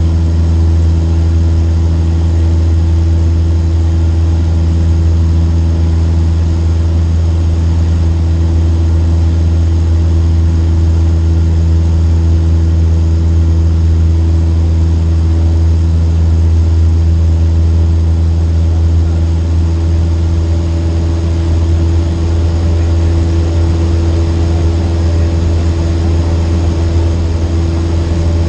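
Cessna 152's Lycoming four-cylinder engine and propeller running with a steady, unchanging drone, heard from inside the cabin.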